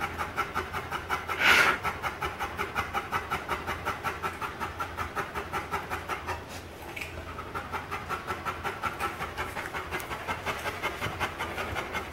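A 90-pound male chocolate Labrador retriever panting loud and fast after a hard workout, about five even pants a second. About one and a half seconds in, a brief, louder rushing noise sounds, and a little past the middle the panting stops for about half a second.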